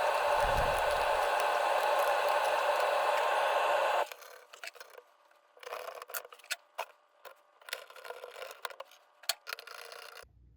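A steady hiss cuts off about four seconds in. It is followed by quiet, scattered clicks and short scrapes of a screwdriver and small screws being handled while a graphics card's cooler is screwed back onto the board.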